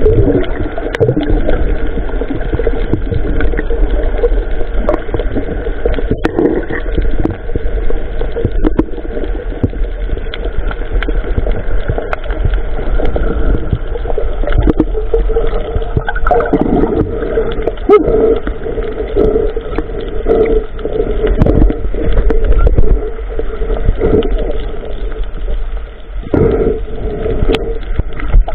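Water gurgling and sloshing continuously, with irregular small splashes.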